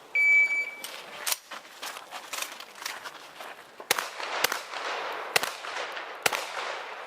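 A shot timer's short electronic start beep, followed by a shotgun firing a string of shots in a practical-shooting stage. The later shots are the loudest, about a second apart, with echo after each.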